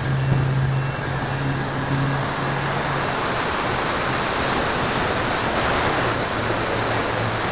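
Wind rushing over a camera mounted on a Dynam DC-3 RC model plane in flight, with the hum of its twin electric motors and propellers. The hum fades about three seconds in and returns as a pulsing drone near the end.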